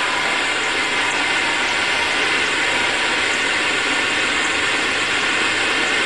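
Steady, rough electronic noise from an instrumental transcommunication (ITC) setup: a dense rushing hiss with a few faint steady tones in it, the background in which the session's voices are listened for.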